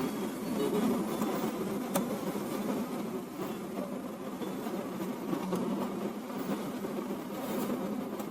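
Steady low buzzing hum, with a faint sharp click about two seconds in.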